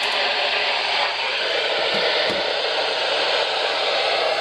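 Steady radio static hiss from a receiver with no usable signal, the broadcast having faded into noise.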